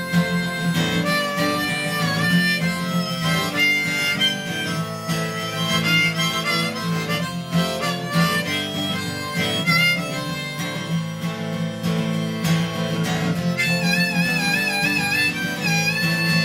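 Harmonica solo over a strummed guitar, a melody of held notes that waver in pitch near the end.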